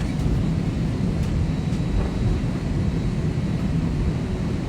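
Steady low rumble of a jet airliner's cabin: engine and airflow noise heard from a passenger seat.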